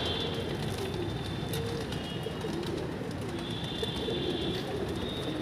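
A large flock of domestic pigeons cooing, many soft coos overlapping without a break.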